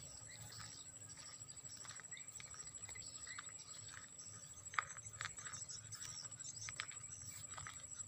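Slow, soft footsteps on a dry dirt path through dry grass, light scuffs and crunches about one every second, one sharper step about halfway through. A steady thin high-pitched tone runs under it.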